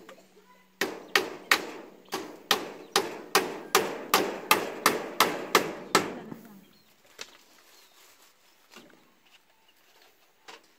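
Hammering on the wood-and-bamboo frame of a chicken cage: a fast, even run of sharp knocks, about two and a half a second. It stops about six seconds in, and a few faint knocks follow.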